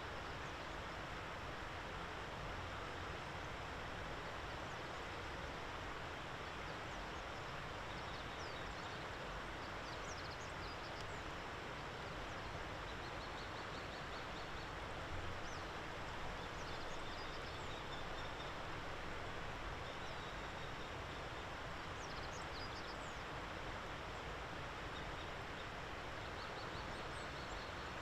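Common kestrel calling in faint, rapid series of repeated sharp notes, several times over a steady outdoor background hiss, with other brief high chirps scattered between.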